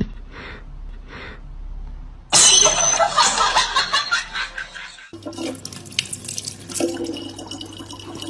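A cat hisses loudly for about three seconds at a sock-covered foot. Then a thin stream of water runs from a tap into a plastic bottle, over a steady low hum.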